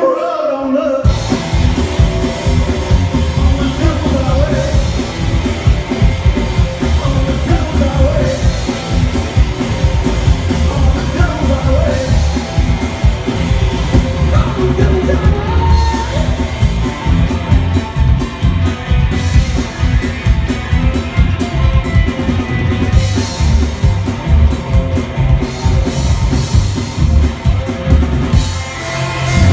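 Live rock band playing loudly: drum kit, two electric guitars and an upright bass, with a singer's voice. The low end and cymbals drop out for under a second right at the start, then the full band comes back in.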